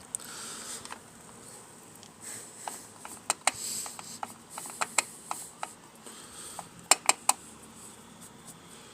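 Scattered sharp clicks and taps of hand tools and hard plastic parts being handled while a lawnmower's back cover is worked on, over light rustling; a quick run of three clicks comes about seven seconds in.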